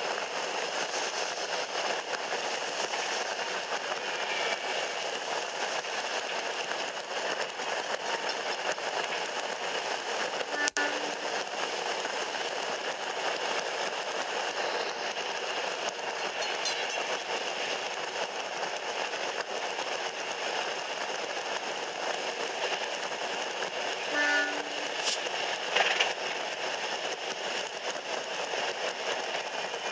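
DA-class diesel locomotive running along the line, a steady noise of engine, wheels and wind, with two brief horn sounds, about a third of the way in and again past the three-quarter mark.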